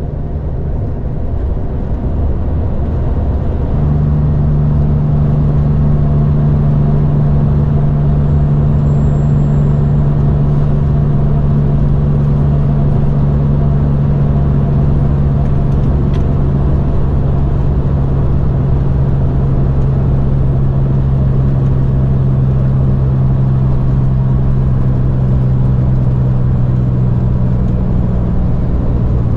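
Road train's diesel engine droning steadily at highway cruising speed, with tyre and road noise, heard from inside the cab. A strong steady low hum sets in about four seconds in and sinks slightly in pitch toward the end.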